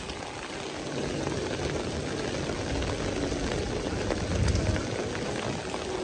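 Heavy rain falling and splashing on wet city pavement, a steady hiss. A low rumble swells briefly about four and a half seconds in.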